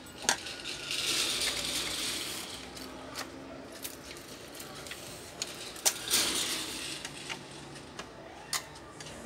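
Plastic parts of a Canon iP2770 inkjet printer's print-head carriage being pried and shifted with a screwdriver: a few sharp clicks and knocks, with two stretches of scraping between them.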